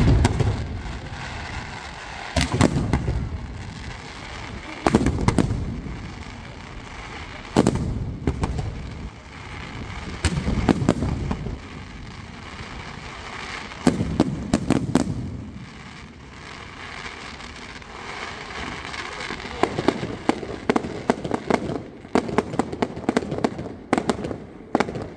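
Fireworks display: aerial shells bursting with deep booms every few seconds, each one rumbling away. In the last several seconds comes a fast run of sharp cracks from a volley of smaller shells.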